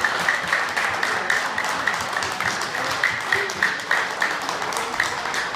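A crowd of people clapping, many hands applauding together.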